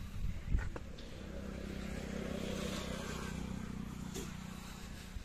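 Steady low engine hum that swells over a couple of seconds and then fades, with a couple of short knocks in the first second.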